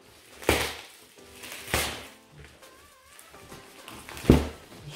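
A knife slitting and tearing open the plastic-wrapped cardboard packaging of a box: three short, sharp strokes, the last and loudest near the end.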